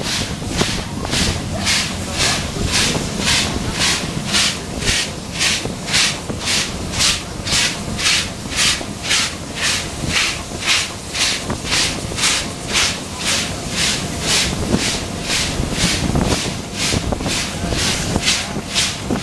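Steam locomotive B1A No. 251 working under steam, its exhaust chuffing in a steady rhythm of about two beats a second over the rumble of the running train, heard close up from the tender.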